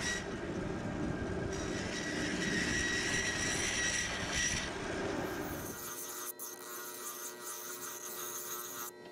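A 1928 American Tool 36-inch bandsaw cutting a spoon blank of ash wood, a dense steady cutting noise with a thin whine. About six seconds in it cuts off abruptly and gives way to a quieter, steady hum made of several even tones.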